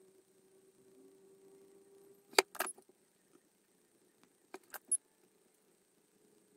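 Sharp metallic clicks and clinks in two short clusters about two seconds apart, as a soldering iron is set down and picked up again; a faint steady hum runs underneath.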